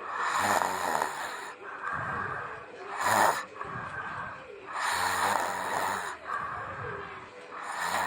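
A person snoring, one snore every second or two, with a short sharp snore about three seconds in.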